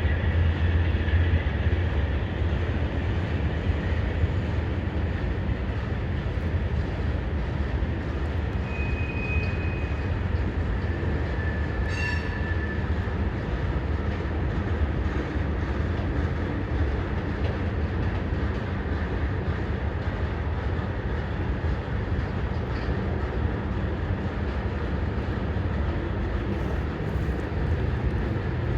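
CSX freight train's cars rolling past steadily, a continuous low rumble and clatter of wheels on rail, with two brief high squeals about nine and twelve seconds in.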